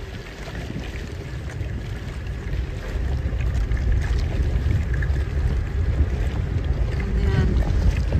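A boat running underway: a steady low rumble of engine and water, with wind buffeting the microphone, growing a little louder about three seconds in.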